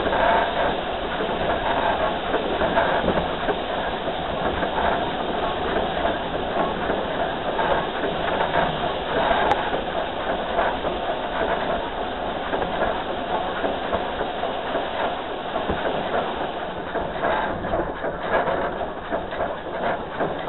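Narrow-gauge steam locomotive No. 192 (a Baldwin 2-8-2) running along the track, heard from its front end: a steady running noise with the clatter of wheels over the rails.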